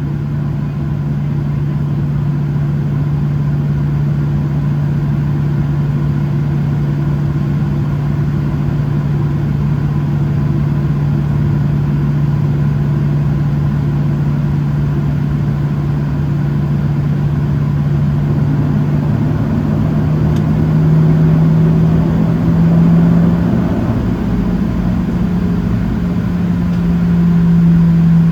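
Boeing 737-700's CFM56-7B jet engines running at low power, heard from inside the cabin as a steady low hum. About two-thirds of the way through, the hum rises a little in pitch and grows louder as thrust is added.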